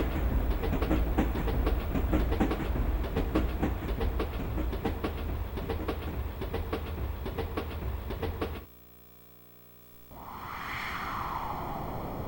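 Karaoke machine's recorded train sound effect: a steady low rumble with rapid clickety-clack of wheels on rail joints, fading and cutting off about two-thirds of the way in. After a short silence a whooshing noise with a sweeping pitch starts.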